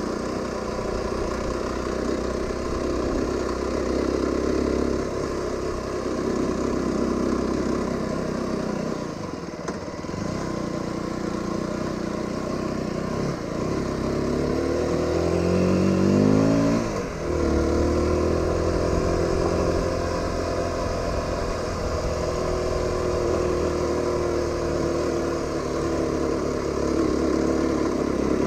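Aprilia RX125 motorcycle engine running on the move, easing off briefly about nine seconds in. From about 14 s it revs up steeply over some three seconds, its pitch rising, then drops sharply at about 17 s and runs steady again.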